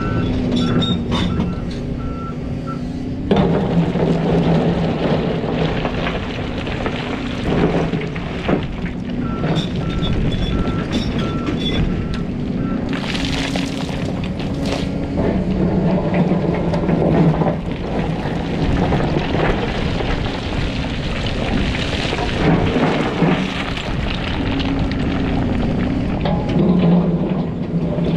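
Volvo EC300EL hybrid excavator working in a rock pile: its diesel engine runs under load, its pitch rising and falling as the boom and bucket move, with rocks clattering and scraping against the bucket. A short run of beeps sounds near the start and again about ten seconds in.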